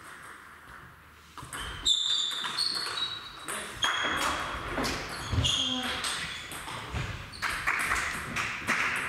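Table tennis balls clicking sharply on tables and bats in a reverberant sports hall, many quick clicks starting after a quieter first second or so, with voices in the background.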